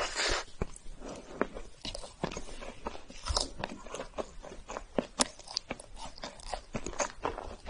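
Close-miked chewing of chocolate, with many sharp, irregular crunches and wet mouth clicks.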